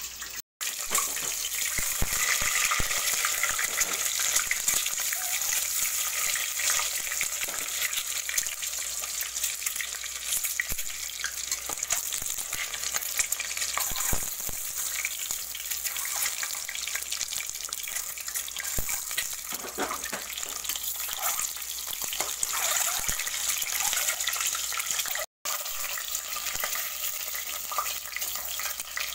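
Peeled, scored boiled eggs frying in hot oil in an aluminium pressure cooker: a steady sizzle with crackling, and now and then a metal spatula moving through the pan.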